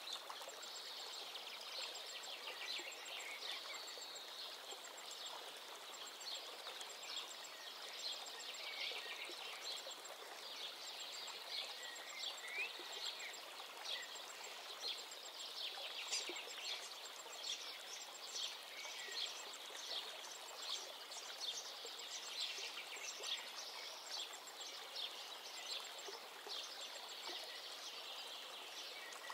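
Small birds chirping and twittering over a steady rushing hiss.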